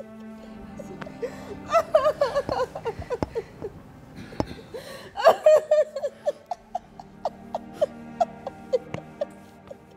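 A woman sobbing in bursts of short, wavering cries, loudest about two and five seconds in, over soft background music.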